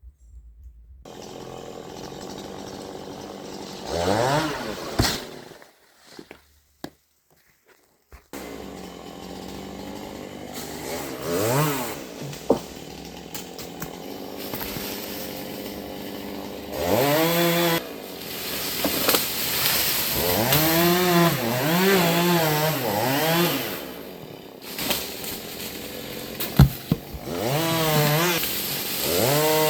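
Gasoline chainsaw idling and being revved up again and again, the engine pitch rising and falling with each squeeze of the throttle. It stops for a couple of seconds early on, then runs again, with a longer stretch at high revs in the middle.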